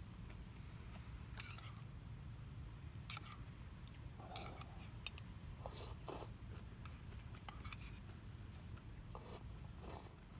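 Short, sharp clicks or snips, about eight of them at irregular intervals, over a low steady rumble.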